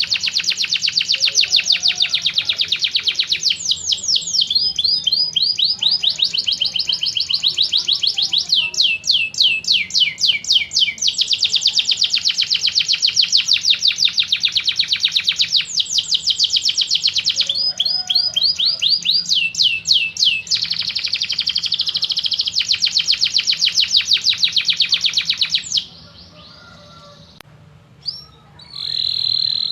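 Domestic canary singing a long run of rapid trills and rolls: fast repeated notes in phrases that change pitch every few seconds. It breaks off briefly near the end, then resumes.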